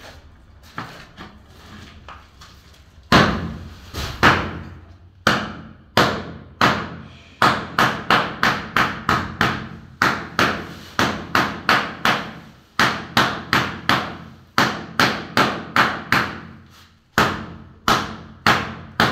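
A large ceramic floor tile being struck again and again as it is bedded into the mortar beneath: sharp knocks with a short ring, starting about three seconds in and settling into two or three a second, with brief pauses.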